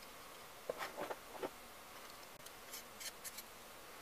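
Faint clicks and light scraping of steel on steel as a hand plane's cap iron is worked off the plane iron and the iron is set down on the bench. The sounds come in two small clusters, about a second in and again about three seconds in.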